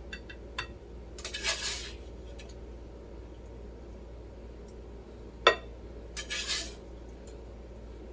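Kitchen tongs clinking and scraping against a frying pan and a plate as stir-fried shrimp and broccoli are served: a few light clicks, two short scraping rattles, and one sharp clack about five and a half seconds in.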